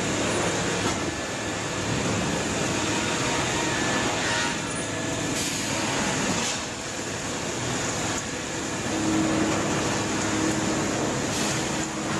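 Heavy wood-processing machinery running with a steady mechanical noise; a low steady hum joins about nine seconds in.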